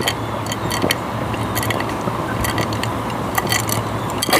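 Ice cubes clinking against a cup of sweet tea in a handful of light, irregular clicks, over a steady low rushing noise.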